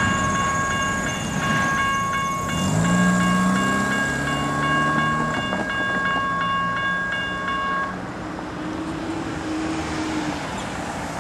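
Railroad grade-crossing bell dinging steadily over the low rumble of a passing stack train. The bell stops suddenly about three quarters of the way through, as the crossing gates go up.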